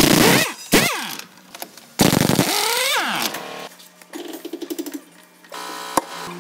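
Pneumatic impact wrench working the wheel nuts of a wheel loader, run in two loud bursts whose pitch falls as each one winds down. Quieter rapid rattling and a steady hum with a few ticks follow.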